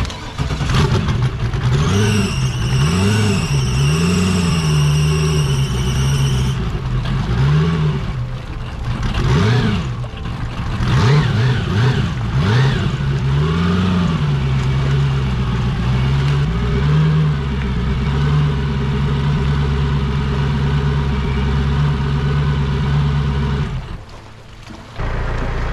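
Turbocharged LS V8 jet ski engine running, revved up and down in repeated swells, then held at a steady speed until it shuts off suddenly. A high whine sounds for a few seconds near the start.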